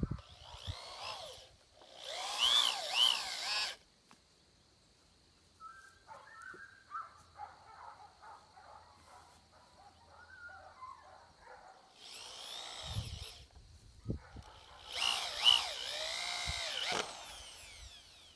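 Cordless drill driving wood screws through birch slats into birch poles, in four short runs with a long pause in the middle; the motor's pitch rises and falls within each run.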